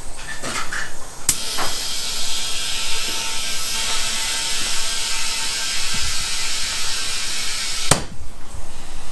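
A few quick clicks, then compressed air hissing from an air hose into a tire as it is inflated to seat the bead. The hiss starts abruptly about a second in, holds steady for about six and a half seconds, and cuts off sharply.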